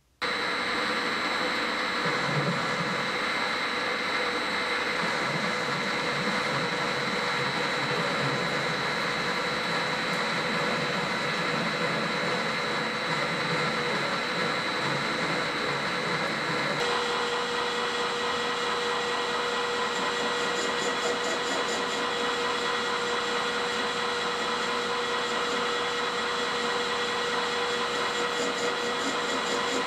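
Metal lathe running steadily, turning a steel bar under flood coolant, with a steady machine whine over a hiss of cutting noise. The whine changes abruptly to a different steady tone about two-thirds of the way through.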